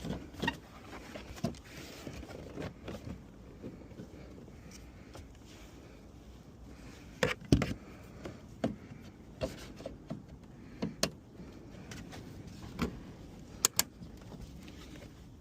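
Scattered light clicks and metallic clinks of a wrench working the 10mm nuts that hold a Mustang tail light, irregular, with the sharpest knocks about seven and a half seconds in and again near the end.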